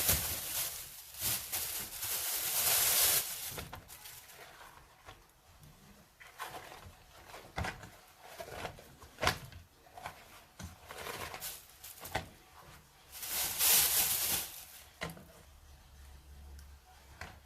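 Kitchen food-preparation sounds: a hiss for the first few seconds and again about two-thirds of the way through, with scattered knocks and clicks in between.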